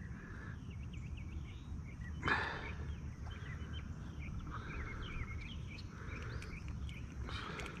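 Faint background birdsong: many small chirps scattered throughout over a low steady rumble, with a brief rushing noise a little over two seconds in.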